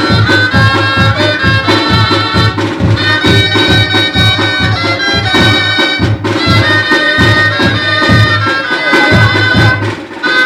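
Two dulzainas, the Riojan double-reed gaitas, play a melody in harmony over a snare drum and a bass drum keeping a steady beat. There are short breaks between phrases.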